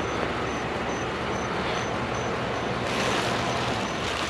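Steady low rumble of an idling vehicle engine, with a broad hiss that grows louder about three seconds in.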